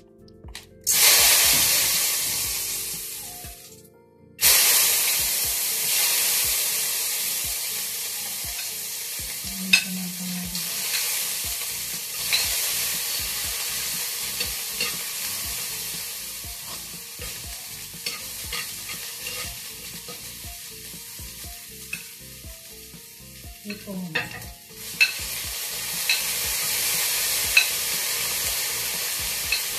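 Food going into hot cooking oil in a wok and sizzling loudly, starting suddenly about a second in, then frying on and slowly dying down while it is stirred, with sharp clicks of the spoon against the pan. The sizzle rises again near the end.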